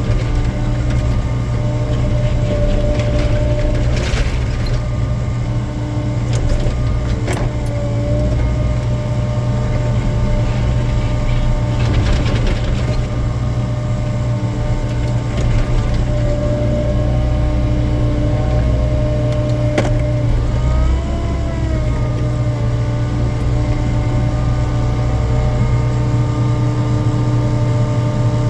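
Excavator's diesel engine running steadily with its hydraulics working, broken by a few sharp knocks and a short rising-then-falling whine about two thirds of the way in.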